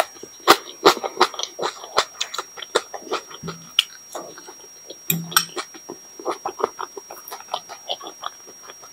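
Close-miked chewing and wet mouth sounds of a woman eating by hand: irregular smacks and small crunches picked up by a clip-on wireless lavalier mic. A faint steady high-pitched whine runs underneath, with two short low hums in the middle.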